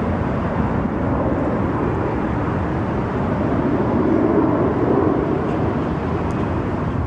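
Four-engine jet aircraft passing overhead: a steady jet roar that swells a little about two-thirds of the way through.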